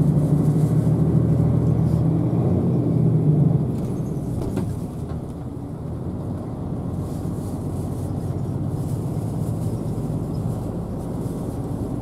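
Route bus engine and road noise heard from inside the cabin while driving. The engine drone is louder for the first three or four seconds, then eases to a lower steady run.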